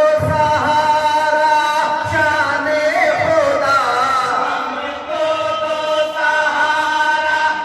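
A group of men singing a naat together in chorus, holding long notes that slide between pitches.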